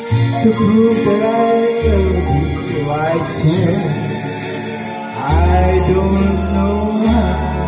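A man singing into a handheld microphone over backing music with a deep bass line.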